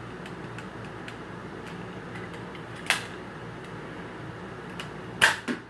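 A Nerf dart shot at a target: one sharp click about three seconds in, then two louder knocks close together near the end, over a steady room hum.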